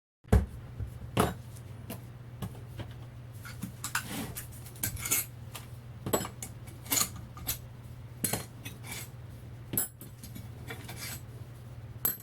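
Bolts, spacers and hand tools clinking and clattering on metal with many sharp, irregular knocks as a large iron-core transformer is taken apart, the loudest knock just as the sound begins. A steady low hum runs underneath.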